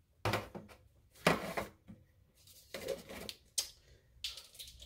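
Measuring spoons on a ring clicking and clattering as they are handled, with a few separate clicks and rustles, the sharpest about a second in.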